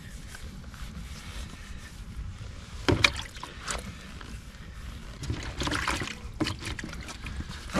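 Sandpaper rubbed by hand over a plastic car headlight lens to take off the weathered, clouded surface: an uneven scratchy rubbing, with a sharper scrape or knock about three seconds in.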